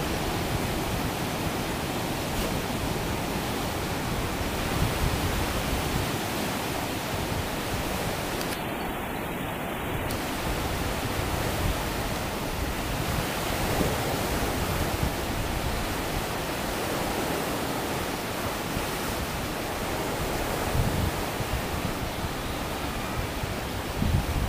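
Steady rush of the Bono tidal bore: turbulent, breaking river water surging past.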